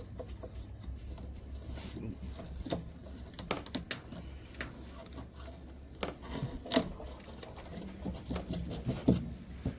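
Hands fitting parts on a washing machine: scattered clicks and knocks of plastic and metal being handled, the sharpest near the end, over a steady low hum.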